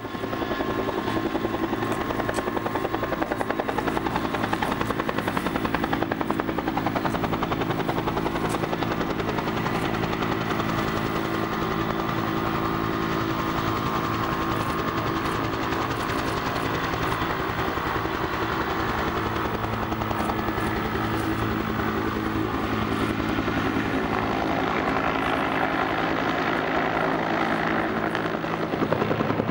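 Helicopter hovering and carrying a sling load of wreckage, its rotor blades beating in a fast, even pulse over the steady drone of its engine.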